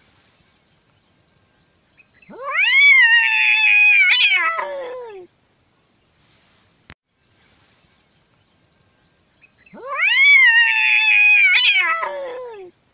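A domestic cat's long drawn-out yowl, twice: each call lasts about three seconds, rising at the start and then sliding slowly down in pitch. A single short click falls between the two calls.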